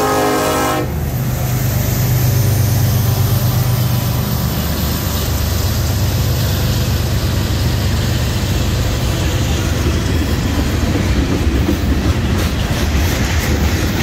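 The Nathan K5LLA five-chime air horn on a Norfolk Southern SD70ACe locomotive finishes a long blast and cuts off about a second in. It gives way to the loud rumble of the freight train's cars rolling past, with wheels clicking over the rails more often near the end.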